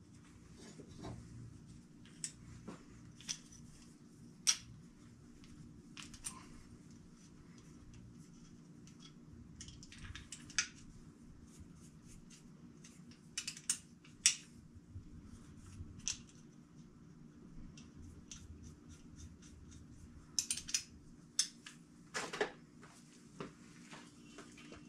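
Scattered light metallic clicks and taps as a hand pop-rivet tool is handled and its head changed, with a cluster of sharper clicks near the end, over a faint steady shop hum.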